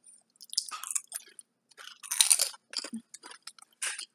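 Someone chewing crunchy kettle-cooked potato chips close to the microphone: irregular crunches, the loudest about two seconds in.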